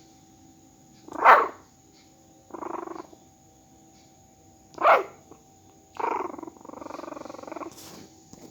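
A Shih Tzu puppy about three weeks old vocalizing in its first baby sounds: two short, sharp yips about a second and five seconds in, between them and after them longer, lower grumbling whines.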